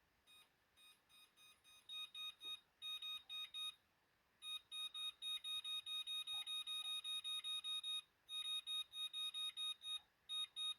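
Oven control panel beeping in quick runs of short electronic beeps, about four a second, as the cook-time buttons are pressed and held to set a 40-minute timer.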